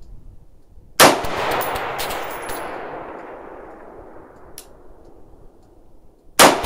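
Two shots from a 5.56 AR-style rifle firing 55-grain rounds, about a second in and near the end, each followed by a long echo that dies away over several seconds.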